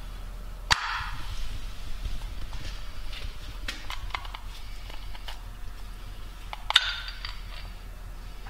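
Small metallic clicks and clinks from handling a used oil filter and its metal housing. Two sharper clicks with a brief ring, about a second in and about seven seconds in, with lighter ticks between them.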